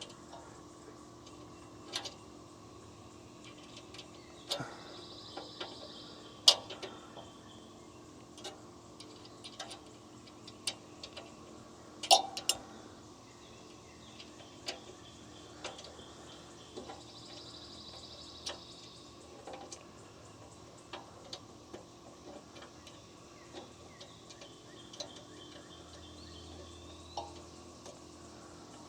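Scattered light clicks and knocks from handling metal parts and tools, sharpest about six and twelve seconds in, over a steady low hum.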